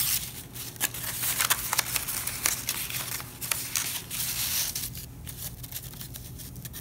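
Construction paper rustling and scraping in short, irregular scratches as a paper strip is threaded over and under the slits of a paper loom and pushed into place.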